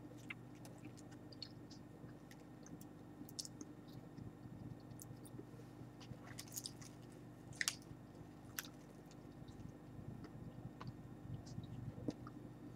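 Faint chewing of dried silkworm pupae: soft, scattered crackles and clicks in the mouth, a little louder about seven seconds in.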